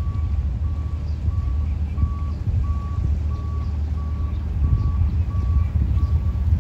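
A reversing alarm beeping steadily, a single high tone repeating about one and a half times a second, over a loud low continuous rumble.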